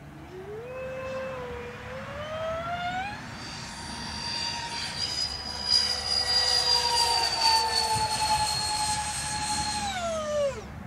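Twin electric ducted fans of a Freewing Su-35S radio-controlled jet model. Their whine climbs in pitch over the first three seconds as the throttle opens, then holds steady and high through the low pass. Just before the end the pitch and level drop off sharply.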